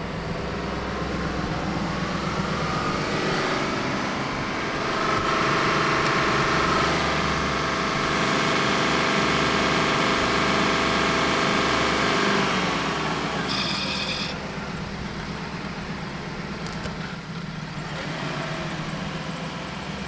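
Motor-vehicle engine running over a steady low drone, getting louder for several seconds and then winding down with a falling pitch about twelve seconds in. A brief electronic beep sounds soon after.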